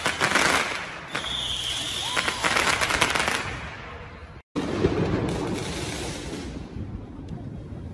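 Fireworks crackling with rapid pops, with a high whistling tone about a second in. After a brief cut just past halfway, the sound drops to a lower, fainter noise with a few scattered pops.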